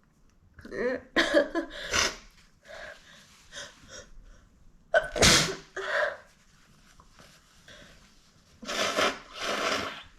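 A woman in a rapid sneezing fit, brought on by pollen: a quick cluster of sneezes about a second in, softer breaths and gasps, a loudest sneeze about five seconds in, and two longer bursts near the end.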